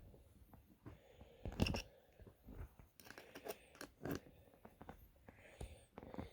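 Scattered faint metallic clicks and taps of a small hex wrench working on a Floyd Rose tremolo's hardware, with one louder knock about one and a half seconds in.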